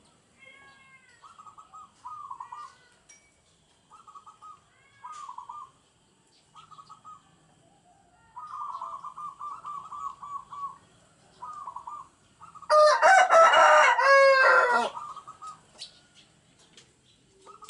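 Caged zebra doves (perkutut) cooing in repeated short, rapid pulsed phrases, one bird in full song. About thirteen seconds in, a rooster crows loudly once for about two seconds.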